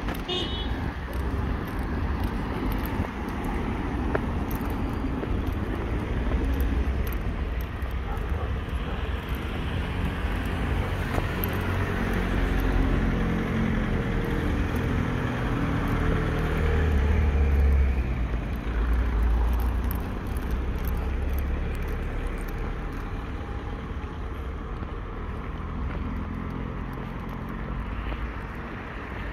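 Town street traffic: cars running along the road, one vehicle's engine swelling louder as it passes close a little after halfway.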